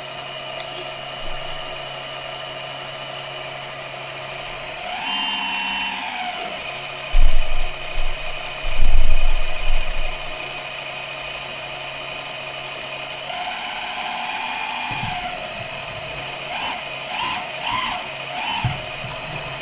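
Hydraulic pump of a large RC excavator running with a steady whine, rising and falling in pitch twice as the arm's cylinders are worked. Two loud knocks come about seven and nine seconds in.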